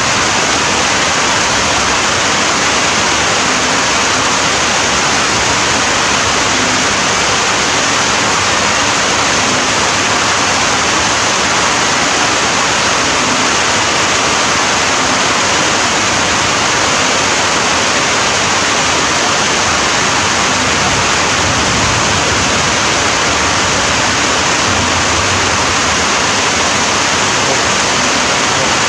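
Steady heavy rain: a dense, even hiss without pause or change.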